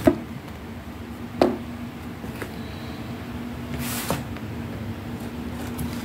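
A steady low hum over background hiss, broken by two sharp knocks in the first second and a half, then a few fainter clicks and a brief rustle about four seconds in.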